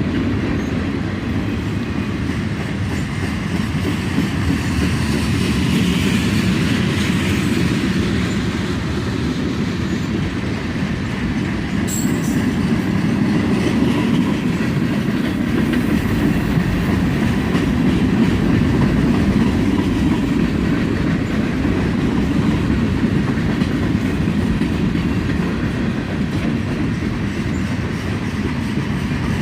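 Freight cars of a long train rolling slowly past, steady rumble with wheels clicking over the rail joints, and a brief high squeak near the middle.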